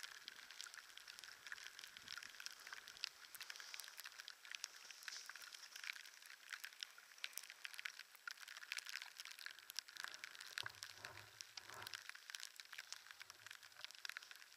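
Wind-driven snow grains ticking against the camera in a blizzard: a faint, dense crackle of tiny clicks over a soft hiss.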